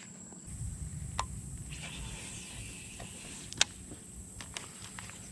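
Baitcasting reel being worked during a flip: faint mechanical whirring and a few sharp clicks, the loudest about three and a half seconds in, over a low rumble.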